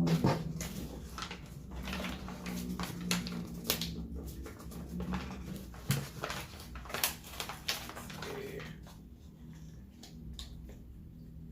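A person chewing and smacking food close to the microphone: a run of wet clicks and mouth smacks that thins out after about eight seconds.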